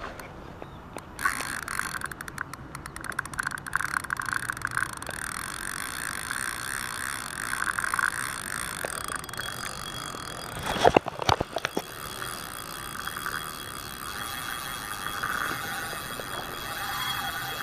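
Spinning reel's drag clicking fast and continuously as a big hooked carp strips line off the spool. A few loud knocks of handling break in about two-thirds of the way through.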